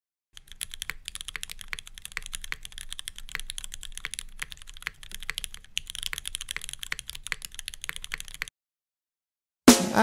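Computer keyboard typing, rapid irregular key clicks several a second, a typing sound effect laid under text appearing on screen. It stops after about eight seconds, and after a short gap pop music starts loudly near the end.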